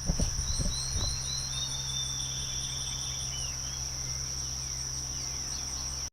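Crickets or similar insects calling: a steady high-pitched drone with a quicker pulsed chirping above it. In the first half, a bird sings a few short falling notes and a brief trill. A few dull knocks come in the first second.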